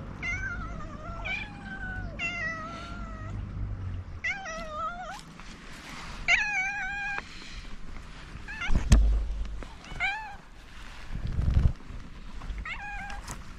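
Domestic cat meowing repeatedly, about eight separate meows, some drawn out and wavering in pitch. A sharp knock about nine seconds in and low bumps a couple of seconds later.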